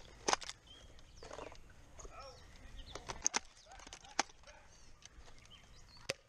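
Four or five sharp clicks of Nerf blasters firing foam darts, scattered a second or more apart over quiet outdoor background.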